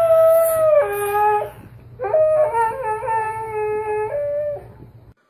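Husky howling, two drawn-out calls held on steady notes that step up and down in pitch, the first ending about a second and a half in, the second starting about two seconds in. The sound cuts off just after five seconds.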